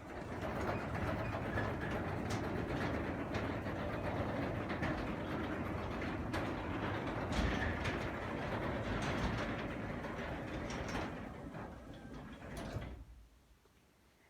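Craftsman three-quarter horsepower belt-drive garage door opener closing the door: a steady mechanical run with scattered clicks for about thirteen seconds, a brief louder bump just before it stops.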